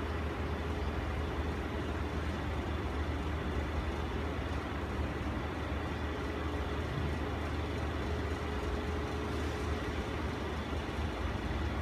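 Steady low hum and rushing noise of a room air conditioner running, with a faint steady tone that fades near the end.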